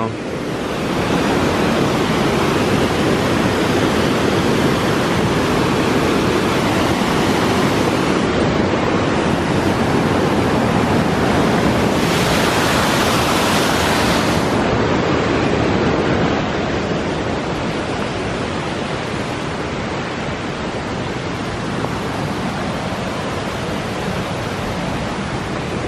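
Mountain creek rushing as white water over a rocky cascade: a steady, loud rush of water that swells about twelve to fourteen seconds in and eases a little after about sixteen seconds.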